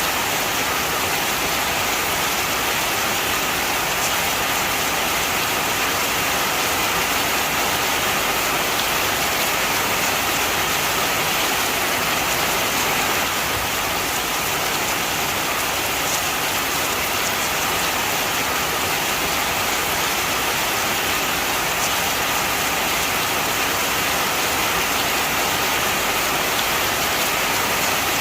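Steady heavy rain falling, a dense even hiss of raindrops with no breaks.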